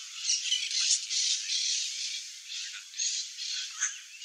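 Forest background: a steady hiss with a few short, high bird calls scattered through it, one about three seconds in and another near the end.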